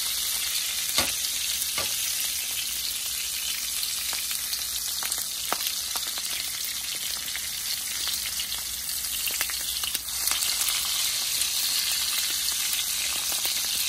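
Smoked sausages sizzling steadily in hot oil in a frying pan, with a few light clicks of metal tongs against the pan as they are turned. The sizzle grows a little louder about ten seconds in.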